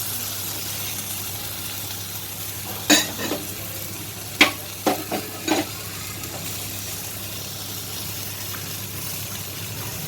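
Spice masala frying in oil in a kadai, with a steady sizzle. About five sharp clinks of a metal spoon against the pan or bowl come between about three and five and a half seconds in, as cashew paste is added and stirred in.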